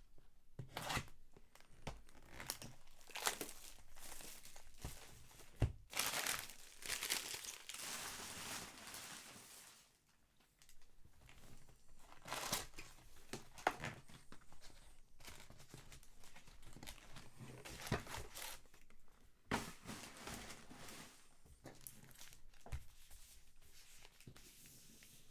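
Baseball card pack wrappers being torn open and crinkled in irregular rustling bursts, with a short lull about ten seconds in.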